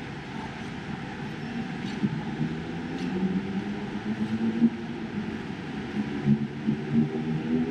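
Street traffic with a nearby vehicle engine running as a steady low hum, which grows louder a few seconds in.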